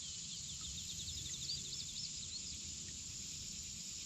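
Outdoor ambience: a steady high insect drone with a faint bird trill in the first second or so, over a low rumble.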